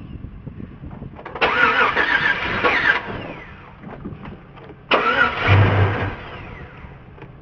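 Chevy engine cranking on its starter in two tries, about a second and a half and then about a second, each cutting off abruptly without the engine catching to run.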